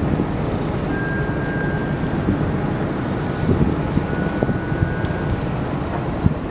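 Steady low rumble of a large ro-ro ferry's engines under way, mixed with wind buffeting the microphone.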